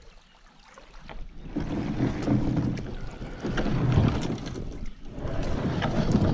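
Kayak hull scraping over a concrete boat ramp as it is shoved down toward the water, in two long grinding scrapes with a short break between them.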